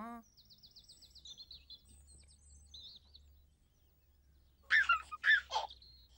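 Faint bird chirping and warbling trills for the first three seconds. Then, about five seconds in, three short, loud bursts close together.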